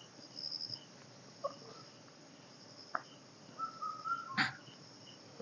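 Faint morning chorus of birds and insects: a short whistled phrase repeated every few seconds, brief high trills, and a steady series of faint high chirps. A sharp click about three seconds in and a louder one near the end.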